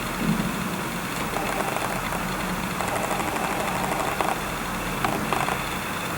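Canon EF 24-105mm STM lens's stepping autofocus motor running in three short spells, the last one brief, heard through the camera body's built-in microphone over a steady hiss and low hum.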